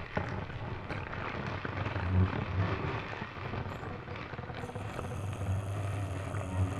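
Experimental guitar played with objects: a dense, rumbling, crackling noise texture over a low hum. A little past halfway, faint steady high tones join in.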